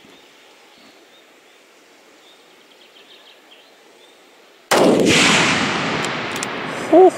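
A single hunting-rifle shot fired at a feral goat, coming after a few seconds of quiet. It is a sudden loud crack followed by a long rolling echo that dies away over about two seconds. A short high chirp sounds just before the end.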